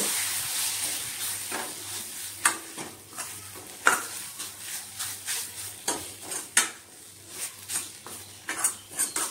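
Steel ladle stirring and scraping flour as it roasts in onion-tomato masala in a kadhai, with scattered sharp metal-on-metal clinks. A soft sizzle fades over the first few seconds.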